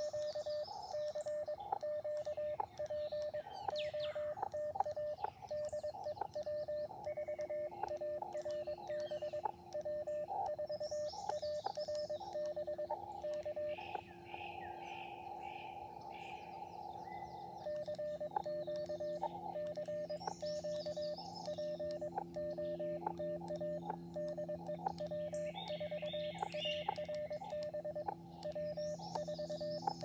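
Elecraft KX2 transceiver's CW sidetone: a single steady mid-pitched tone keyed on and off in Morse code characters. The keying stops for a few seconds about halfway through, where the receiver's hiss comes through, then resumes. Birds chirp faintly at times.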